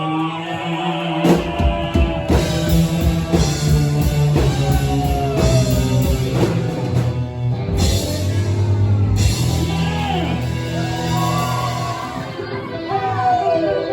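Live rock band playing: electric guitar with sliding, bending notes over bass and drums.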